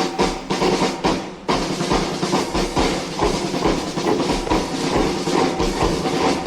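Band music with a steady, regular drumbeat: a few spaced drum hits, then the full band comes in about a second and a half in.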